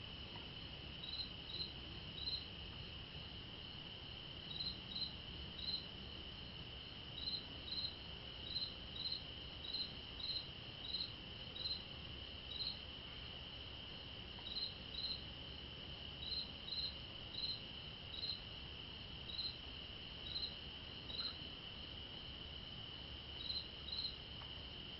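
Crickets at night: a steady high-pitched trill with short, higher chirps on top, coming about once or twice a second, often in pairs, with brief pauses now and then.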